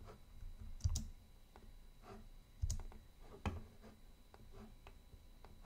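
Computer mouse clicking a few times, three of the clicks sharper than the rest, with fainter ticks between.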